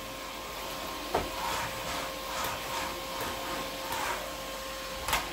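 Vacmaster 2.5-gallon, 2-peak-horsepower shop vac running with a steady whine. Several short swishing rubs come as the nozzle is worked over something, the sharpest about a second in and just before the end.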